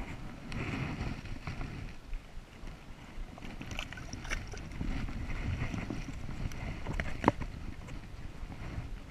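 Water splashing and sloshing around an angler's hands and landing net as a brown trout is let go and swims off. There are a few sharp clicks and knocks, the loudest about seven seconds in.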